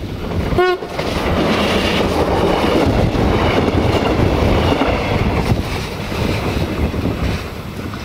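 Duewag BR628 diesel multiple unit giving one short horn toot just after the start, then running past at speed with a steady rush of engine and wheel noise that eases off near the end.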